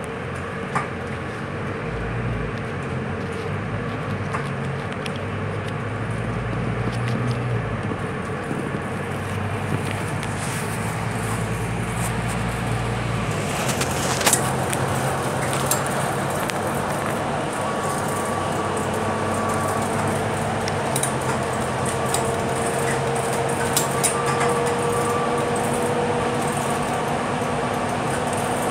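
Scania K320UB city bus running on the road, heard from inside the cabin near the front. Its engine note shifts in steps over the first dozen seconds. A rising whine builds near the end as the bus gathers speed, over steady road noise, with a few sharp rattles from the cabin fittings.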